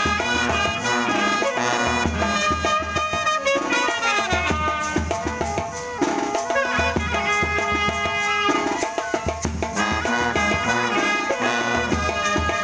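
Indian brass band playing a lively tune: trumpets and other horns carry the melody over sousaphones, with bass drum and snare drum keeping the beat.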